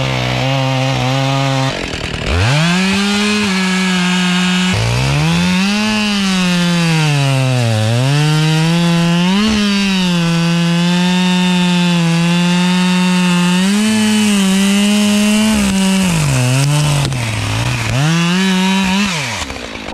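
Chainsaw cutting wood at high revs. Its engine pitch sags as the chain loads up in the cut and climbs back several times, with a brief drop and re-rev about two seconds in.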